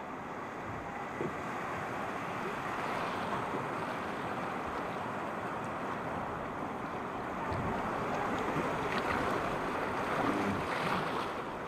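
Rushing water of river rapids churning around a wooden boat, with wind buffeting the microphone; the rush grows a little louder in the second half.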